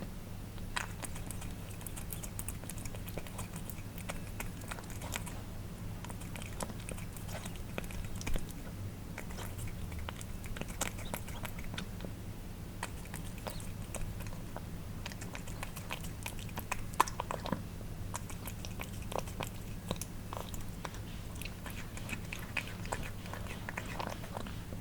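Cats eating wet food: a steady run of irregular wet licking, lapping and chewing smacks, with a low steady hum behind.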